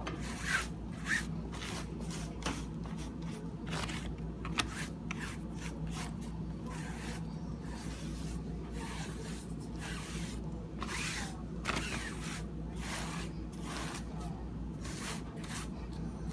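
Close rubbing and scraping as a frying pan and a cloth are handled on a cutting board, with a few light knocks in the first few seconds, over a steady low hum.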